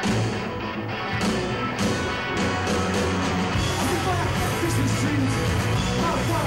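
Punk rock music: loud electric guitars, bass and drums, with a voice-like line bending through the middle from about halfway.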